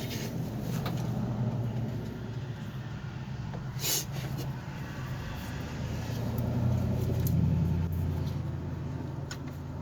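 A motor vehicle engine running steadily at a low pitch, swelling louder about seven seconds in, with one sharp click about four seconds in.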